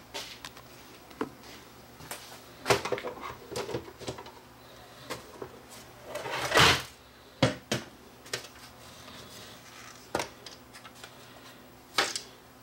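Black plastic case of a Videonics Titlemaker being handled and taken apart with a screwdriver: scattered clicks and knocks, a louder scrape about six and a half seconds in, and a sharp clack near the end as the top cover comes off.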